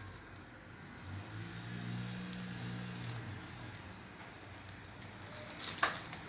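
Faint handling sounds as a piping bag is brought to the cake: a low hum starting about a second in and lasting about two seconds, light scattered clicks, and one sharp click or tap near the end.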